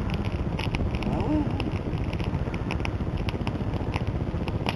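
Campfire of small dry sticks burning, with sharp crackles and pops two or three times a second over a steady low rushing noise.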